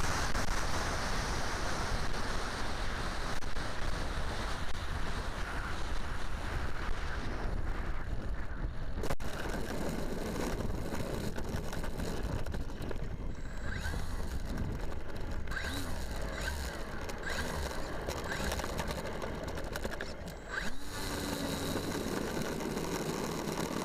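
Wind rushing over the microphone of a small camera mounted on an electric RC T-28's wing during a gusty approach and landing. About twenty seconds in the rush drops away and a faint steady whine sets in.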